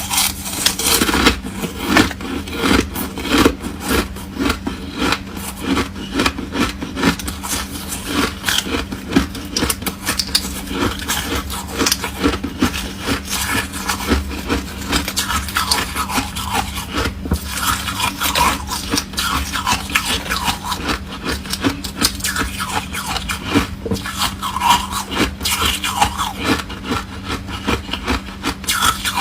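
Foam ice being chewed close to the microphone: a dense, irregular run of crunches and crackles, with a steady low hum underneath.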